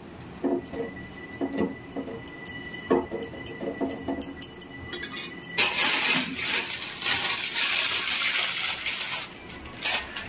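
A steel spatula stirring noodles in boiling water in a metal pot, clinking and knocking against the pot. About halfway through, a loud steady hiss starts suddenly and runs for nearly four seconds before cutting off.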